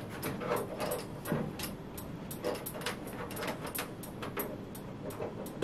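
Irregular clicks and rustling of cables and plastic being handled as a cable connector is worked into the back of a wall-mounted TV.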